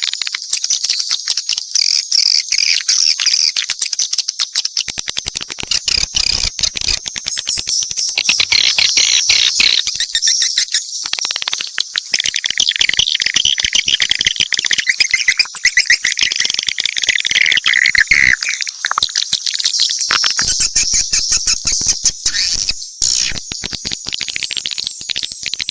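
Many swiftlets calling together: a dense, unbroken twittering of rapid high chirps and clicks, with a lower run of twitters through the middle. It is a mixed swiftlet call recording of the kind played to lure swiftlets into nesting houses.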